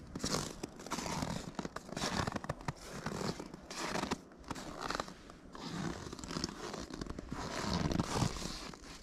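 Snow crunching and scraping in irregular strokes, roughly one a second, as in digging through snow.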